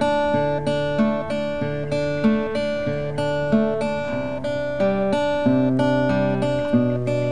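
Background music: an acoustic guitar playing picked notes in a steady, even rhythm over a changing bass line.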